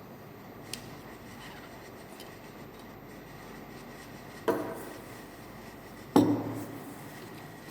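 Kitchenware being handled: a faint tap about a second in, then two sharp knocks about a second and a half apart, each with a short ring, over a low steady background.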